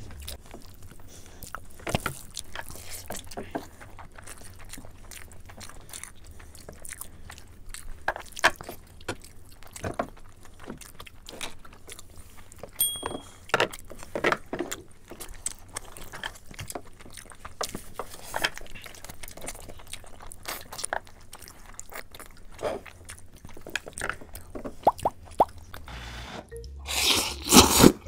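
Close-miked eating sounds: wet chewing, lip smacking and short clicks as meat curry and rice are eaten with the hands. Near the end comes a loud, longer noodle slurp.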